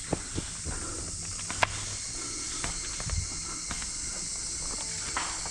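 Steady high-pitched insect drone from the surrounding brush, broken by a few sharp clicks, the loudest about a second and a half in.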